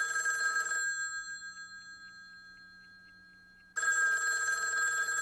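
Telephone bell ringing twice: a ring at the start that dies away over a few seconds, then a second ring a little under four seconds in.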